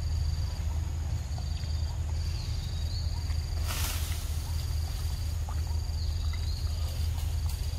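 Insects trilling in high, steady phrases about a second long with short gaps between, over a steady low rumble, with a brief rustling hiss a little before the middle.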